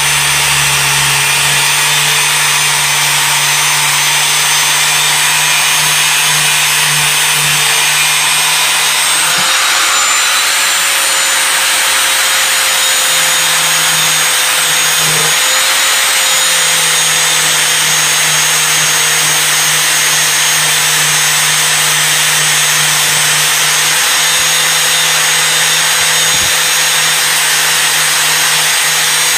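Angle grinder running continuously under load, its abrasive disc grinding rust off the steel head of an antique hatchet. The sound is a steady motor whine over a harsh grinding hiss, and the motor note shifts slightly about nine seconds in.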